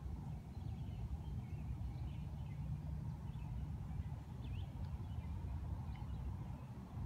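Small songbirds chirping in short, scattered calls over a steady low rumble.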